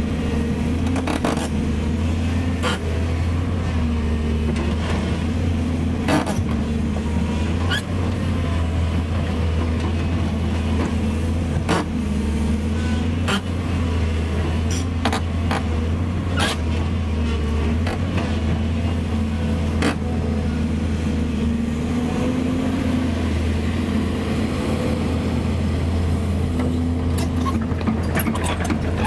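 Volvo EC210B excavator's six-cylinder diesel engine running steadily, with a deep hum, and a scattering of short, sharp metallic clicks and knocks.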